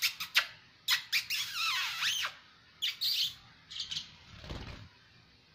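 Small pet parrot giving a few high, warbling chirps and squawks, opening with several sharp clicks.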